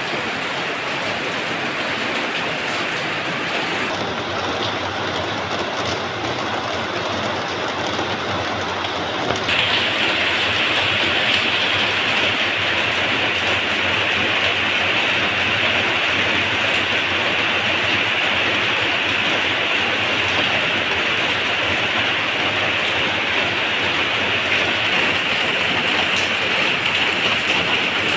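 Steady rain falling, an even hiss. About ten seconds in it gets louder and brighter.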